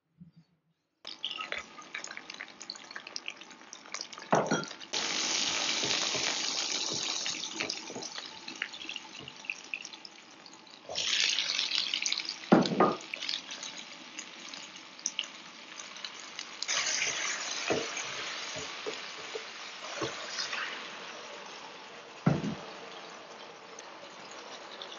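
Food sizzling in hot oil in a wok as it is stir-fried: a steady hiss that swells loudly about five, eleven and seventeen seconds in, as fresh ingredients hit the oil, with a few sharp knocks against the wok.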